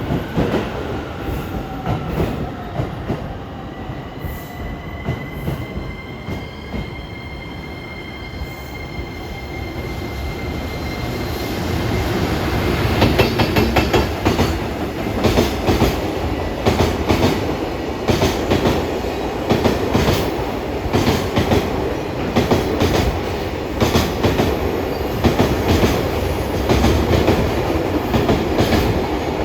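JR Freight EF210-class electric locomotive and container wagons passing. At first a rumble with a high, several-toned whine that rises slightly. From about twelve seconds in, it gives way to the louder, rhythmic clatter of wheels striking the rail joints as the wagons roll by.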